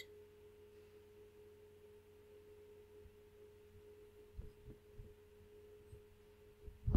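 Faint steady electrical hum, a single held tone with a weaker lower tone beneath it. A few soft low thumps come about four to five seconds in, and a louder one near the end.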